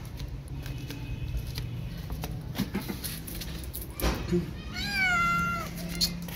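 Calico cat giving a single drawn-out meow, about a second long, a little past halfway through, over a steady low hum. A couple of sharp clicks come just before it.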